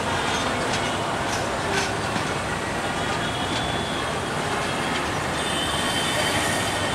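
Passenger train coaches rolling slowly over the rails: a steady rumble with a few sharp clicks, and a high wheel squeal that comes and goes, strongest near the end.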